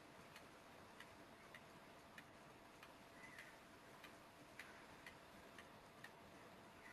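Near silence with faint computer-mouse clicks, about a dozen short ticks at uneven intervals of roughly half a second.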